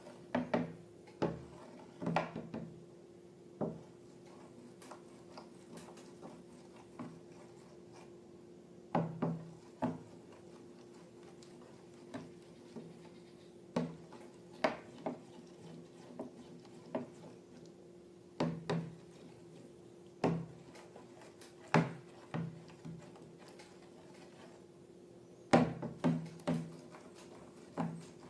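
Irregular sharp taps and clicks of things being handled, some coming in quick clusters, over a faint steady hum.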